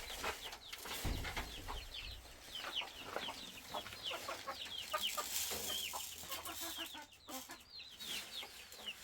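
Chickens clucking, with many short high calls overlapping one another. There is a low thump about a second in.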